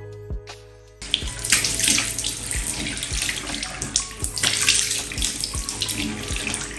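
Water running from a tap into a washbasin while hands cup and splash it for face washing, starting about a second in. Quiet background music plays underneath.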